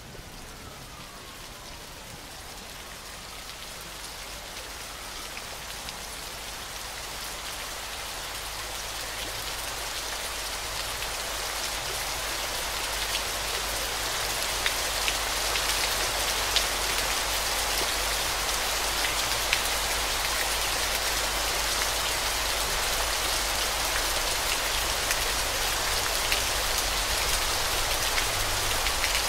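Steady patter of falling water, rain-like, with scattered sharp drops over a low steady hum. It grows louder over the first half, then holds steady.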